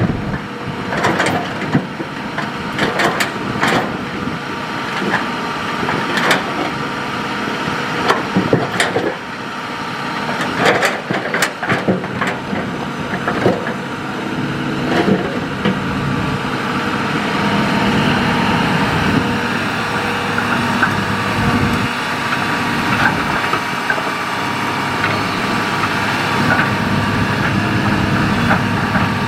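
Hitachi hydraulic excavator's diesel engine running under load, with frequent knocks and clatters of the bucket working sand and gravel through the first half; the engine runs steadier from about halfway.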